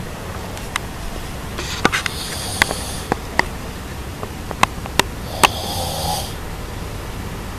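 Snoring: two long, airy snore breaths about four seconds apart, the second with a lower rasp in it, among scattered short sharp clicks.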